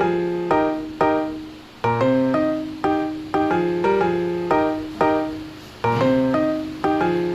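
Background music: a piano melody of struck notes, each fading away before the next.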